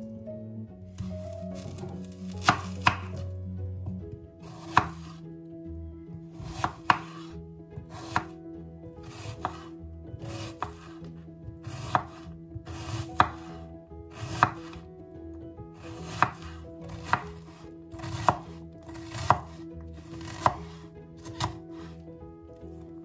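Knife dicing an onion on a wooden cutting board: separate knocks of the blade hitting the board, about one a second, starting about two seconds in.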